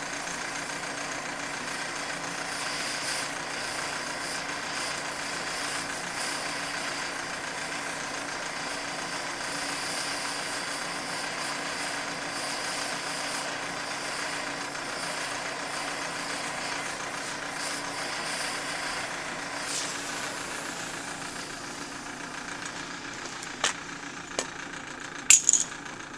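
Steady rushing hum from the brass jet nozzle feeding a homemade gasifier. It eases off near the end, and several sharp clanks follow.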